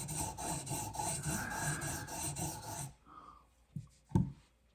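Abrasive stone of a TS Prof Cadet guided knife sharpener rasping rapidly back and forth along a steel blade's edge, filing it down to raise a burr. The strokes stop about three seconds in, followed by two short soft knocks.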